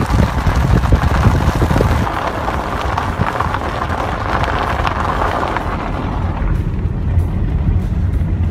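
Car driving on a snow-packed road, heard from inside the cabin: a loud, steady low rumble of road and engine with wind rushing over the extension ladder tied to the roof. The rushing hiss eases off about six seconds in.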